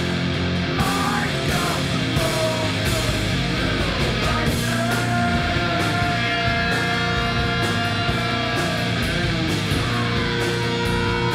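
Heavy rock music: electric guitars and held melodic lines over a steady drum beat.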